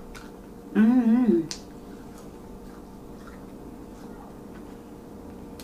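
A woman makes a short hummed 'mmm' about a second in while eating French fries, followed by a sharp click; faint clicks of chewing and mouth sounds run through the rest.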